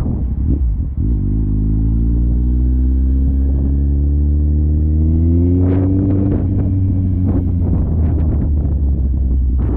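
Heavy, steady low wind rumble buffeting a GoPro Hero 9's microphone while riding. Over it an engine note rises in pitch for several seconds as the engine speeds up, followed by a run of sharp knocks and clatters in the second half.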